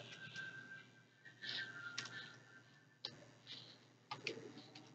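A handful of faint, scattered clicks from computer keyboard keys being pressed while code is edited.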